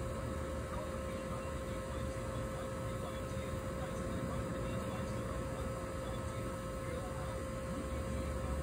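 Steady low hum and rumble with a faint constant tone, unchanging throughout; no distinct knocks or impacts.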